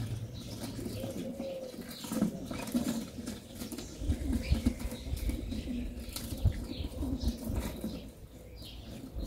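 Doves cooing in a repeated low rhythm, with small birds chirping higher up. A low rumble comes in about four seconds in.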